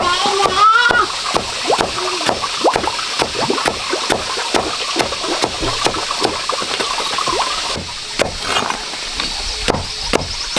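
Steady, rapid chopping: a blade striking down over and over, about three strokes a second, cutting up plants for pig feed. A brief high-pitched voice-like call comes in the first second.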